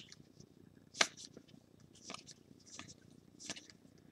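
Trading cards being flipped through by hand, sliding against each other in about four short, soft swishes, the sharpest about a second in.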